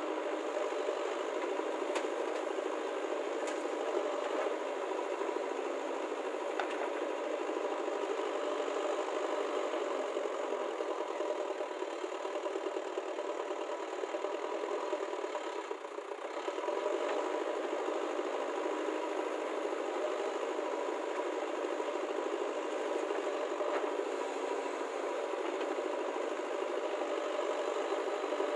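Diesel engine of a JCB backhoe loader running steadily while its rear bucket digs, together with a farm tractor's diesel engine idling. The level dips briefly about halfway through.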